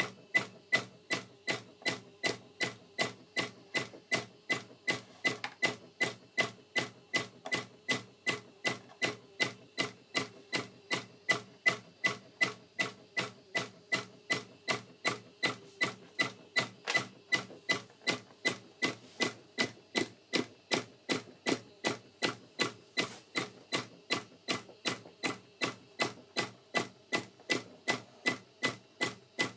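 Chlorine dosing pump knocking in a steady, even rhythm, about two and a half sharp clicks a second, each with a short ringing tone. The uploader says the dosing pump is glitching.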